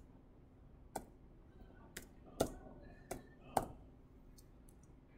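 Computer keyboard keystrokes: five separate key clicks, spaced unevenly over about three seconds.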